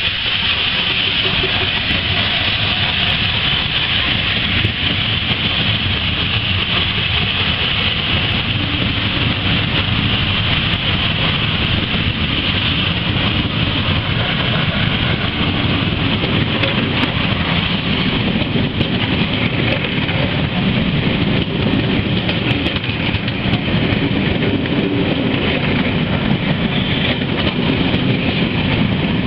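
Coaches of a steam-hauled train rolling steadily past on the departure of LNER A4 Pacific 60019 Bittern, a continuous rumble and rattle of wheels on rail. A high hiss is strongest in the first half, and the low rumble grows stronger later.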